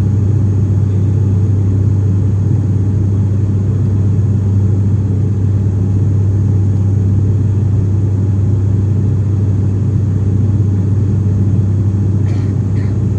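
Steady drone of an ATR 42-500's Pratt & Whitney PW127 turboprop and six-bladed propeller, heard from inside the passenger cabin in flight after takeoff. It is a loud, even hum with a strong low tone that does not change.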